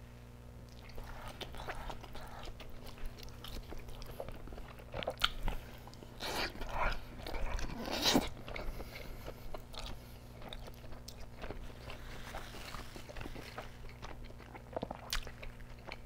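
A person biting into and chewing a slice of soft, not-crispy deep-dish pizza with stretchy melted cheese, close to the microphone: irregular wet mouth and bite sounds, loudest between about five and eight seconds in.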